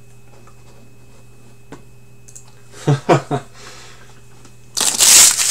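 Low room hum with a faint click and a short murmured voice sound, then, near the end, a loud crinkling rustle of the plastic wrapper on a sealed pack of hockey cards as it is picked up.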